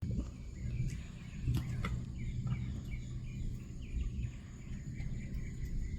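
Outdoor night ambience through a doorbell camera's microphone: a steady low rumble with faint short chirps and a few clicks in the first two seconds.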